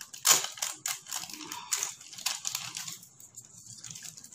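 Clear plastic packaging bag crinkling as it is handled and opened by hand: a run of irregular crackles that thins out near the end.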